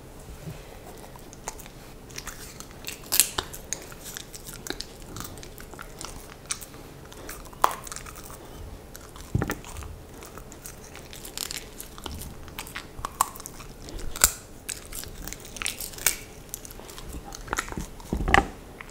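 A Samoyed biting and chewing slices of pumpkin close to the microphone: irregular crunches and mouth clicks, with a louder crunch near the end.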